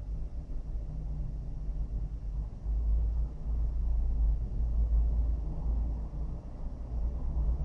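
Low rumble with no distinct events, louder through the middle stretch.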